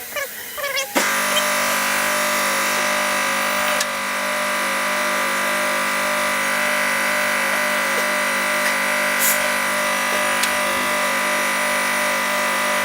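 A small electric motor, like a power tool's, starts abruptly about a second in and then runs at a steady, unchanging pitch.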